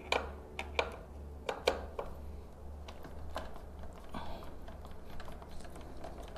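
Clicks and knocks of a hand screwdriver and screws being worked during disassembly of a speaker. A few sharp knocks come in the first two seconds, then lighter scattered ticks, over a steady low hum.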